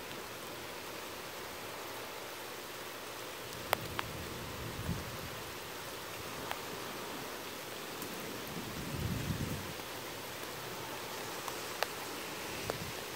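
Steady hiss of rain during a thunderstorm, with low rumbles of distant thunder about four seconds in and again about nine seconds in. A few sharp clicks sound now and then.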